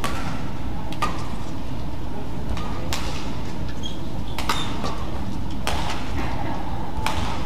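Badminton rackets striking a shuttlecock in a rally: about six sharp hits, a second or so apart, over steady low background noise.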